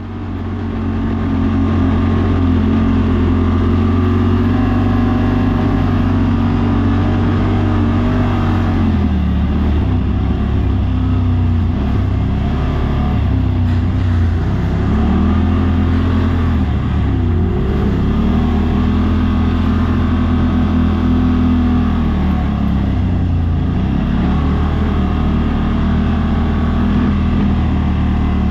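Side-by-side UTV engine running at trail speed, its revs repeatedly rising and falling as the throttle is worked on a dirt trail, fading in over the first second or two.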